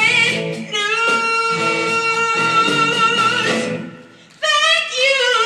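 A woman singing a blues number into a hand microphone over instrumental backing, holding one long note. Around four seconds in the sound drops away briefly, then her voice comes back.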